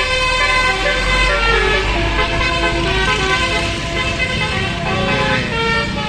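Basuri telolet multi-tone horn on a Sanjaya Trans tour bus playing a stepping melody of held notes as the bus drives past, over the low rumble of its engine.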